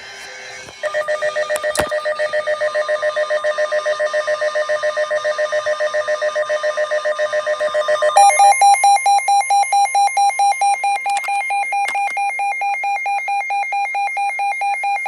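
Electronic alert tone beeping in rapid, even pulses, with a change to a different pulsed tone about eight seconds in. This is the attention alarm that opens a severe thunderstorm warning broadcast.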